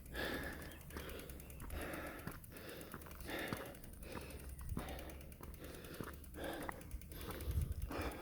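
A man breathing hard, panting in quick, even gasps about one breath a second, worn out on a long uphill climb by bicycle.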